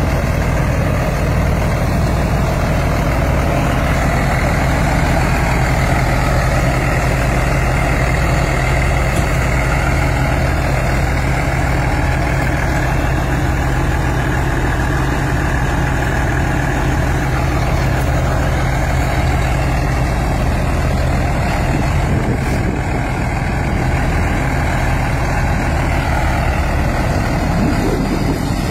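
Heavy farm-tractor diesel engine running steadily at constant speed, a continuous low drone.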